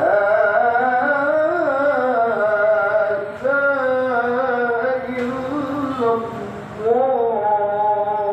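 Singing: a single voice holding long notes that slide up and down in pitch, in phrases with short breaks between them.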